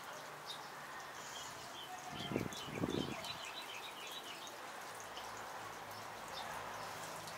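Small birds chirping in a quick series of short calls over a steady background hum. Two low, dull thuds about two and three seconds in are the loudest sounds.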